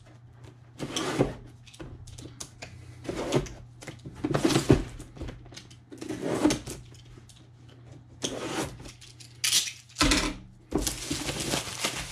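Clear plastic shrink wrap on a cardboard model-kit box being slit with a box cutter and pulled off, crinkling and rustling in irregular bursts.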